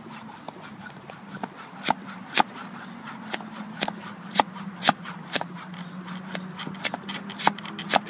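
A hand pressing and tapping a freshly pumped-up BMX tyre, giving sharp taps at an irregular rate of about two a second from about two seconds in, to show the tyre is hard.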